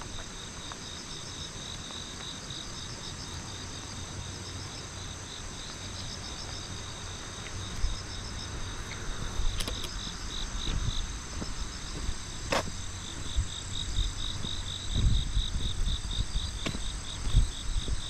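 Crickets and other insects chirping in fast pulsed trains over a steady high-pitched insect drone. There is a single sharp click about twelve seconds in, and irregular low rumbling bumps near the end.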